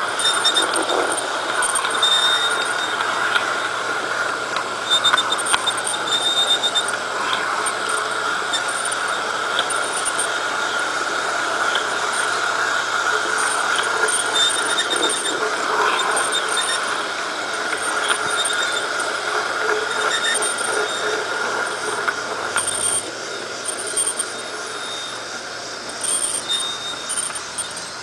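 LGB G-scale model streetcar running along garden-railway track: a steady high whine of wheels and drive with light scattered clicks, getting a little quieter near the end.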